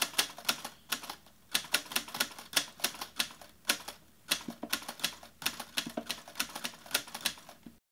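Typewriter keys clacking: a run of sharp, irregular key strikes, about three or four a second, that stops suddenly near the end.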